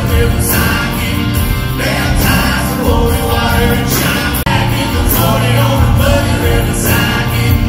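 Live band and singers performing a pop song on a theatre stage, with drums and guitars and a steady beat, heard from the audience. The sound drops out for an instant about four and a half seconds in.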